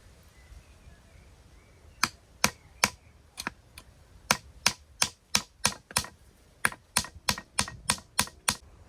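A run of sharp, short taps or knocks, about two to three a second and slightly uneven, starting about two seconds in and stopping just before the end.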